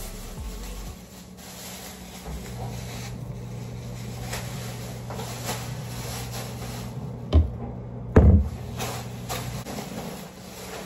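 Household handling noises: scattered soft clicks and knocks, with two louder thumps about seven and eight seconds in, over a low steady hum.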